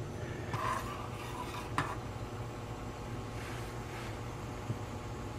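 Faint steady hiss of water heating toward a boil in a frying pan on a butane stove, with small bubbles forming on the pan's bottom. A brief scrape just after the start and a light knock about two seconds in.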